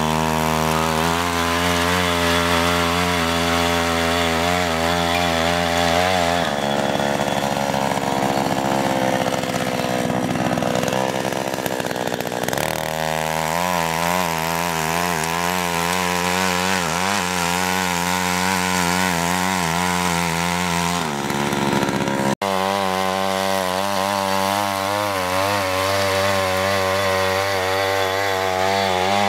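Small petrol engine of a walk-behind mini rotary tiller running at high revs as its tines churn soil, the pitch wavering up and down under the changing load. It turns rougher for several seconds in the middle, and cuts out for an instant about two-thirds of the way through.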